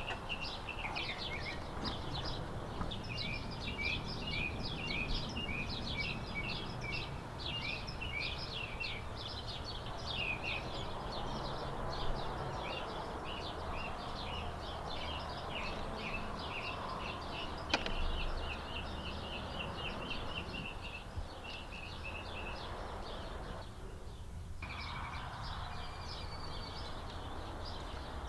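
Birds chirping continuously, a dense chatter of many short, rapid chirps, over a steady low background rumble, with a brief break near the end.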